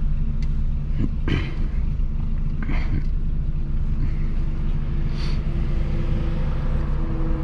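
Peugeot 206 1.4 four-cylinder engine with a straight-through exhaust, just the pipe and no muffler, droning steadily as the car drives, with a few short sharp noises over it. About five and a half seconds in, the note takes on a steadier, higher tone.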